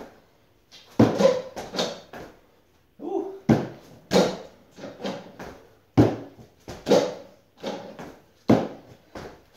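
Feet in athletic shoes thudding repeatedly as a person jumps up onto a padded step bench and back down to the floor, some landings in quick pairs, about two a second.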